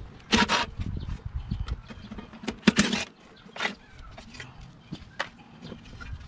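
Plastic blower housing and recoil starter of a Briggs & Stratton Quantum mower engine being worked loose and lifted off: a few irregular knocks, scrapes and rattles, the sharpest about two and a half seconds in.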